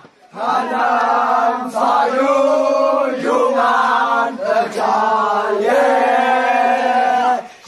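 A group of Wancho dancers chanting together, holding long notes in several phrases of a second or so, each broken by a short pause for breath.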